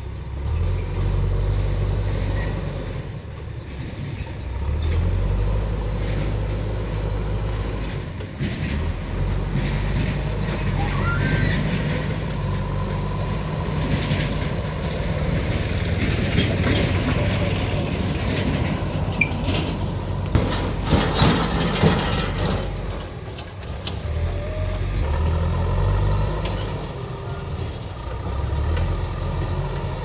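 Diesel engines of a JCB backhoe loader and a farm tractor running, the engine note rising and falling as the loader works soil into the tractor's trailer. A run of loud knocks and rattles about two-thirds of the way in.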